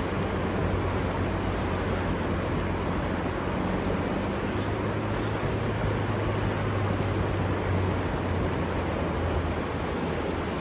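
Steady rushing of river water, with a low hum underneath that grows louder in the middle.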